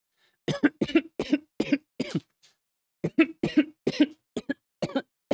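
A man coughing after inhaling vaporizer vapour: two fits of rapid, short coughs with a brief pause between them.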